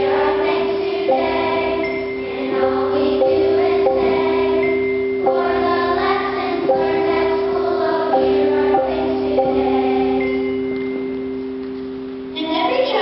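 Children's choir singing, over two steady held notes underneath.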